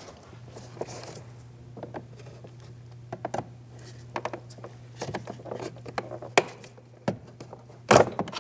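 Plastic door-trim switch bezel being pried up with a pick tool: scattered small clicks and knocks as its clips pop out of place, with a louder knock near the end. A steady low hum runs underneath.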